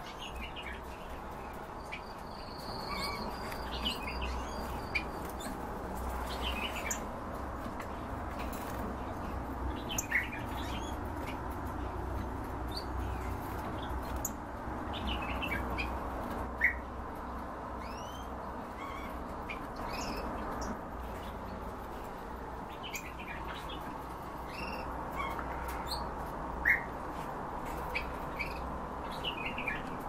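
Caged pet birds chirping in short, scattered calls, with a brief held whistle a few seconds in, over a steady low background noise.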